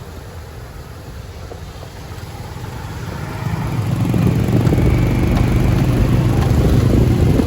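Motorbike engine and traffic noise heard while riding in city traffic, growing much louder about three or four seconds in and staying loud.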